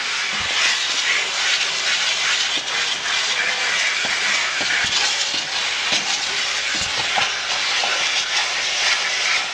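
A car-wash vacuum running, with a steady loud hiss of air rushing through the hose and a few soft knocks.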